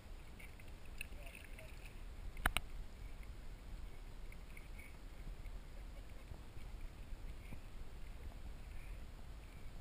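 Water sloshing and splashing around a kayak, with a low steady rumble. A pair of sharp knocks comes about two and a half seconds in.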